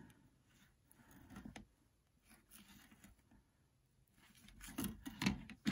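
Fillet knife slicing and scraping through a rainbow trout fillet to cut off the dorsal fin, knife edge against a cutting board: a few faint strokes, then a louder run of short cuts near the end.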